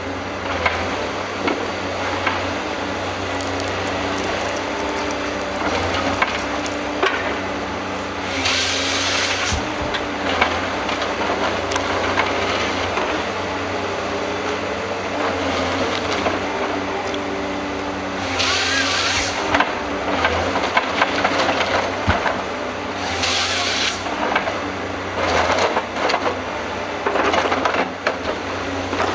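HSM 405H harvester's diesel engine and hydraulics running steadily while its harvester head feeds and handles a stem, with three loud short bursts of the head's chain saw cutting through the log and lighter cuts near the end. Sharp knocks and cracks of wood in between.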